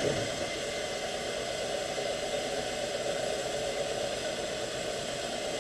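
South Bend drill press running with a steady whirring hiss and hum while a long 1/8-inch bit drills a deep hole in aluminium.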